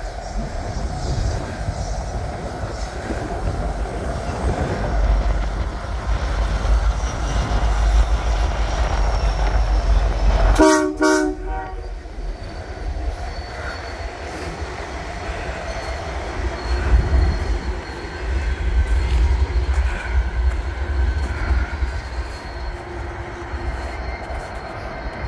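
Canadian National SD70M-2 8932, with a C44-9W trailing, passing close by with its diesel engines running with a low rumble. The lead locomotive's horn gives two short taps about ten and a half seconds in.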